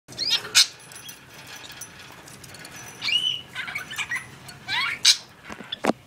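Zebra finches calling: a string of short, irregular chirps and squeaky calls, several sliding up or down in pitch, with a few sharp, louder chirps.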